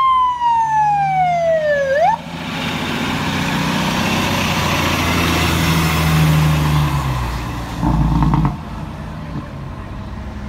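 Fire engine siren winding down in pitch for about two seconds, then cutting off with a short upward flick. The fire engine's motor and tyres follow as it drives close past, with a brief loud low rumble about eight seconds in, then fading road noise.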